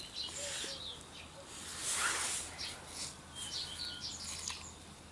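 Soft rustling, loudest about two seconds in, with a few short high bird chirps a little later.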